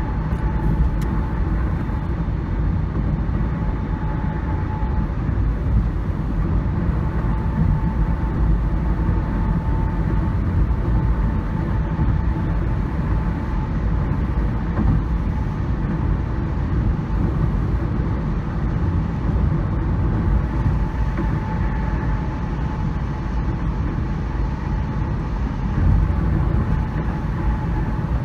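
Steady low rumble of a road vehicle travelling along, with a thin steady tone running through it.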